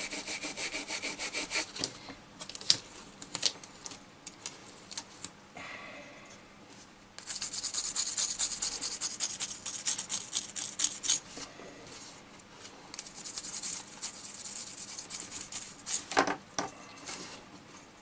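Brisk back-and-forth scrubbing on a freshly soldered iPod circuit board as it is cleaned, in quick runs of rapid strokes with quieter pauses between. Two sharper knocks come about two seconds before the end.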